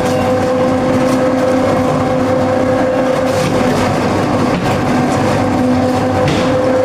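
A 1-ton-per-hour MDM machine running steadily, a loud constant mechanical hum with a steady whine, and a few faint clicks.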